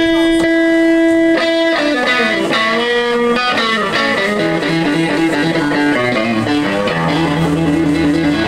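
Electric guitar playing a solo: a long held note for about the first two seconds, then a run of notes stepping down, then fast repeated picked notes.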